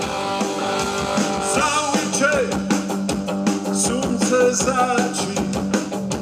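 Rock band playing live: electric guitars and drums keep a steady beat, and a man's singing voice comes in about a second and a half in.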